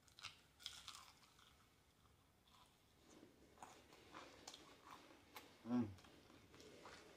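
Close-up chewing and crunching of crispy fried chicken wing, with a few sharp crackles of the batter in the first second. A short, loud vocal sound from the eater comes a little before the end.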